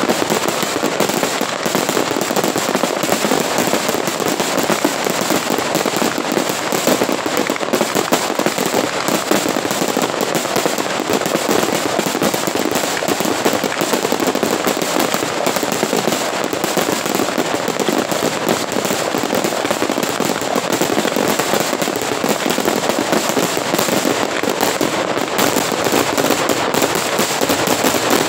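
Fireworks crackling continuously: a dense, unbroken stream of rapid sharp pops at an even, loud level, with no big single bangs.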